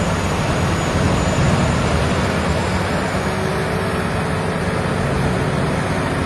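Large Vermeer wood chipper running steadily, its engine a constant drone under a rushing noise.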